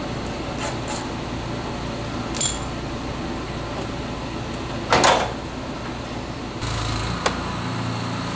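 Handling noises of body panels being fitted to a car: a few light clicks, a short ringing metallic clink about two and a half seconds in, and a louder knock about five seconds in, over a steady background hum that drops to a lower drone near the end.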